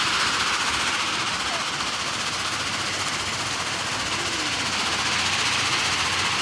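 Steady, even mechanical noise of a stone crusher plant running, with no distinct rhythm or change.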